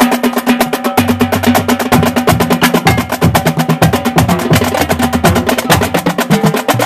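Marching drumline playing a fast cadence: rapid snare strokes over pitched drums, with the low bass drum notes moving from pitch to pitch.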